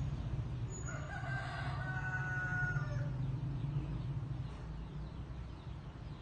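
A rooster crowing once in the background, a single call of about two seconds, over a steady low hum.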